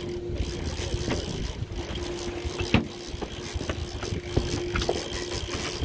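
Boat engine idling with a steady hum, under a low rumble of wind and water along the hull. A few light clicks and knocks come through, the sharpest a little under three seconds in.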